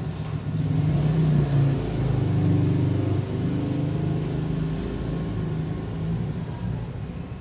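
A low, steady motor rumble with a droning hum that wavers in pitch, louder between about one and four seconds in.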